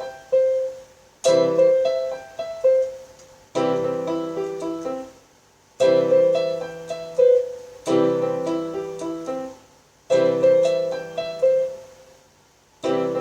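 Electronic keyboard on a piano voice playing a short repeating part: a chord struck about every two seconds, a few single notes after each, each phrase left to fade.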